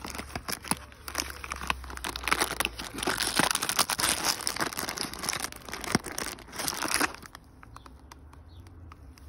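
Crinkling, tearing and rustling of a treat box's packaging as it is opened and a treat is taken out, with many sharp crackles. It stops about seven seconds in.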